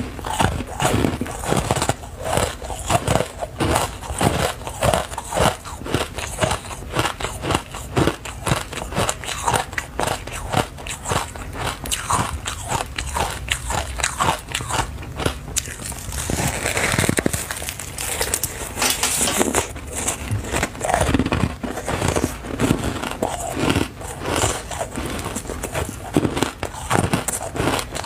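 Close-up biting and chewing of blocks of powdery foam ice: a dense run of short crunches, with a longer crumbling hiss a little past halfway.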